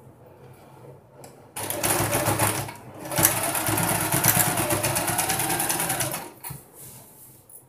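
Singer electric sewing machine stitching a seam: a short run about a second and a half in, a brief stop, then a longer run of about three seconds before it stops near the end.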